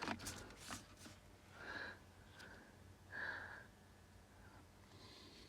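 Quiet room with a few light handling clicks in the first second, then two soft breaths through the nose.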